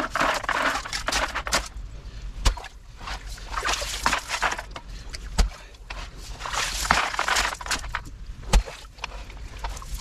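Manual clamshell post-hole digger plunging into a water-filled hole in gravel and mud: splashing, sloshing and gritty scraping, with a sharp knock about every three seconds.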